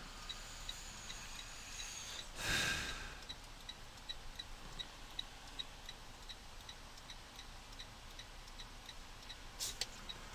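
Volvo 730 semi truck's turn-signal indicator ticking steadily in the cab, about three ticks a second, while the truck waits to turn. About two and a half seconds in, a brief rush of noise rises over it.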